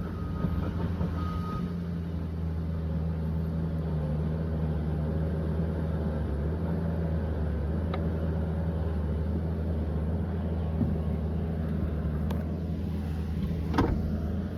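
Liebherr 744 crawler dozer's diesel engine running steadily under work. Its reversing alarm beeps faintly during the first second or so, and a sharp metallic clank comes near the end.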